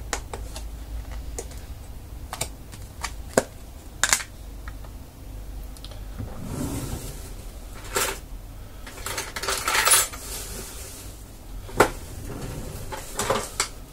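Plastic tub being handled in the hands: scattered sharp clicks and taps of hard plastic, with two longer rustling scrapes, about seven and about ten seconds in.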